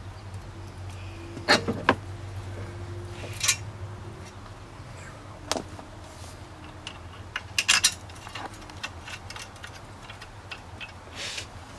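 Scattered metal clinks and knocks of a front wheel hub bearing assembly and its parts being handled and worked onto the steering knuckle, with a quick run of clinks about two-thirds of the way through, over a steady low hum.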